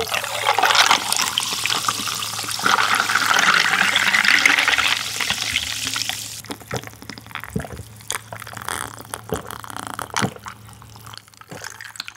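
Sparkling water poured from a plastic bottle into a tall glass, rushing for about six seconds, then stopping. Fainter fizzing and crackling with a few clicks follow for the rest of the time.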